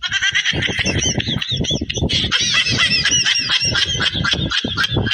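Farmyard fowl, such as geese, calling rapidly and continuously as a jumble of short rising-and-falling honks. Dull low knocks and thuds run underneath.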